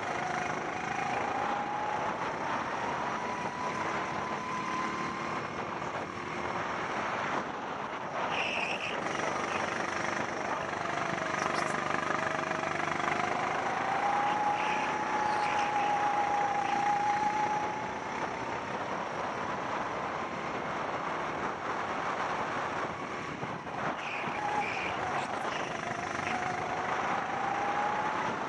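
SODI RX8 rental kart's single-cylinder four-stroke engine running at speed on track, its pitch rising and falling repeatedly as it speeds up and slows.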